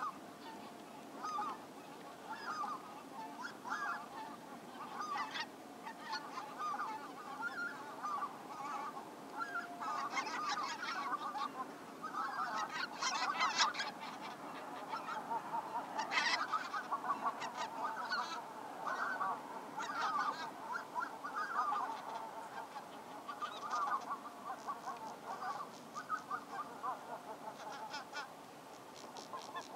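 Geese calling: many short, overlapping calls from a flock, busiest around the middle.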